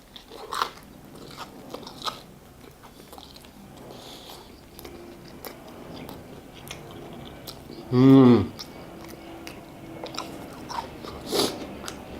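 Close-miked biting and chewing of a crispy fried chicken burger: wet mouth sounds with small crunches and clicks. About eight seconds in, a short loud vocal sound from the eater, falling in pitch.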